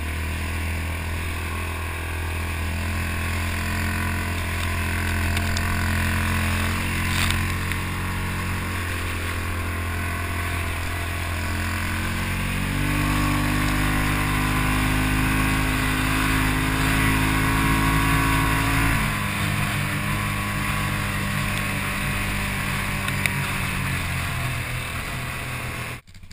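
ATV engine running under way, heard from the vehicle. Its pitch steps up about halfway through as it speeds up, drops back about six seconds later, and the sound cuts off suddenly near the end.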